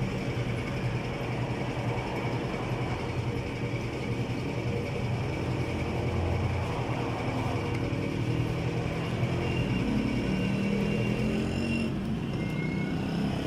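Steady low rumble of motor vehicle engines, with a faint high tone briefly near the end.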